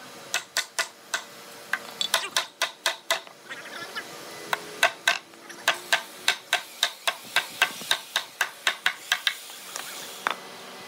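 Hammer striking a chisel cutting a notch into a hardwood block: a quick, steady series of sharp knocks, about three a second, each with a brief ring. The blows stop about a second before the end.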